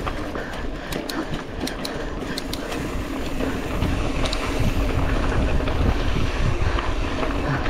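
Wind buffeting the microphone of a camera carried on a mountain bike ridden fast on a race trail, with a run of sharp clicks and rattles from the bike in the first few seconds. The rushing grows a little louder about halfway through.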